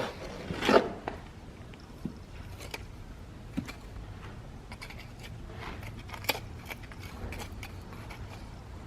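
Scattered light scrapes and clicks, with one louder scrape about a second in, over a low steady hum.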